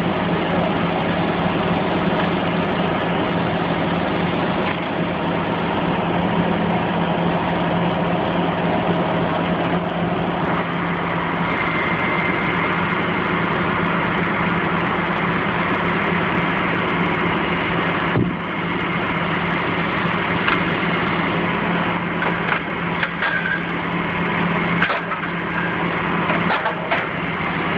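Heavy crane engine running steadily under load while hoisting a rooftop air-conditioning unit, with more high-end noise from about ten seconds in. A few short knocks come near the end.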